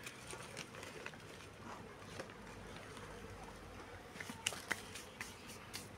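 Faint buzzing of a disturbed honeybee colony as its comb is handled, with a few short clicks about four and a half seconds in and near the end.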